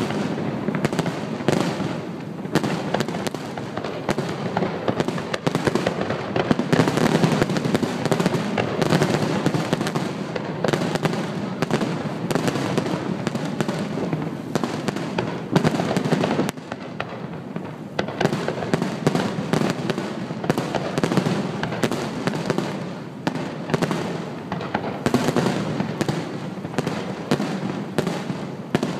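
Aerial fireworks shells bursting one after another in a dense, continuous barrage of bangs and crackle, easing briefly about halfway through.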